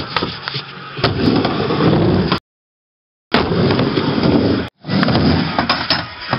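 Skateboard rolling on a mini-ramp: the wheels rumble steadily, with sharp knocks of the board and trucks hitting the ramp. The sound cuts out for about a second partway through.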